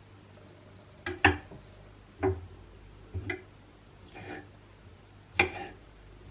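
Slow, separate knocks and taps of kitchen utensils, roughly one a second, with the sharpest knocks about a second in and near the end.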